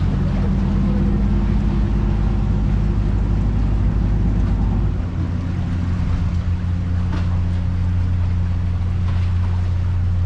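River tour boat's engine rumbling low and steady as the boat manoeuvres in alongside the pier to dock; the engine note changes about halfway through.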